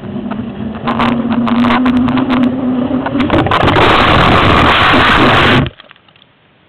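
Wind and snow rushing loudly over a body-worn camera's microphone as the rider crashes at speed on a ski slope, with several knocks and bumps as the camera tumbles through the snow. The noise cuts off suddenly near the end as the camera comes to rest, buried in snow.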